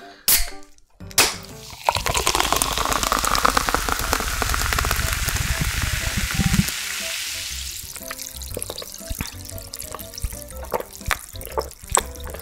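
A soda can is cracked open with a sharp click, followed by a second click about a second later. Clear carbonated cider is then poured into a glass, a loud hiss lasting about five seconds. After that, the soda fizzes in the glass with many small crackling pops.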